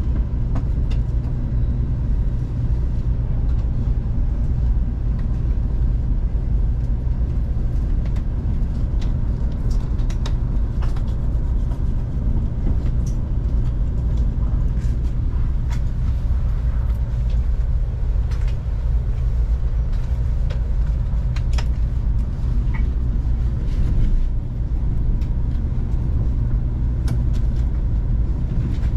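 Taiwan High Speed Rail train running: a steady low rumble with faint scattered clicks and rattles.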